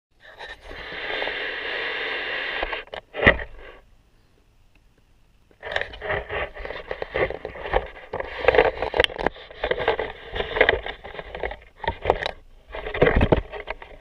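Hands working bicycle hoses and plastic cable clips: a steady rasp, a sharp click, a short pause, then irregular rustling, scraping and small clicks as the cables are moved and clipped together.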